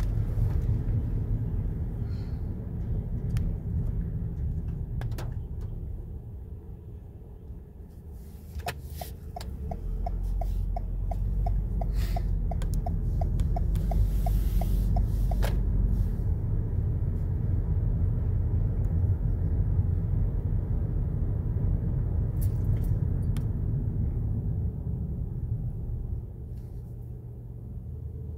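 Steady low rumble of a car driving, heard inside the cabin. In the middle a regular ticking, about three a second, runs for around six seconds, with a sharp click just before it starts and another as it stops.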